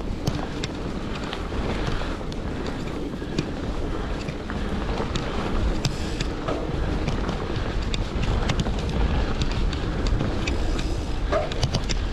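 Mountain bike rolling fast down a dirt trail: wind rushing over the microphone and tyres rumbling on the dirt, with scattered clicks and rattles from the bike all the way through.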